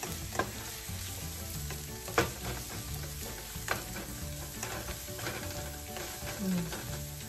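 Chopped pork, garlic and onion sizzling in hot oil in a frying pan while being stirred with a silicone spatula, which scrapes and knocks against the pan a few times, sharpest about two seconds in.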